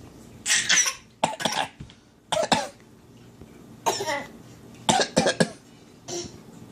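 Young child fake coughing: a series of short, forced coughs in about six bouts, some of two or three coughs, with short pauses between.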